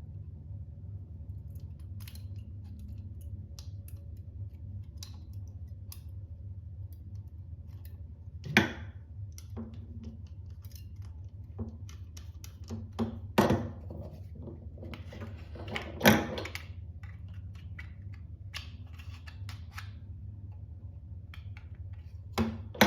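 Hard plastic clicks and clacks from handling the parts of a 3D-printed toy folding knife, with four louder snaps spread through, over a steady low hum.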